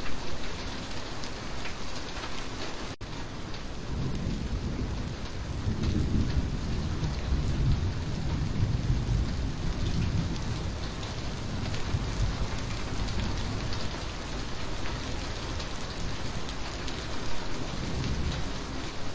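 Steady heavy rain falling. A low rolling rumble of thunder swells about four seconds in and eases off after about twelve seconds. There is a momentary break in the sound about three seconds in.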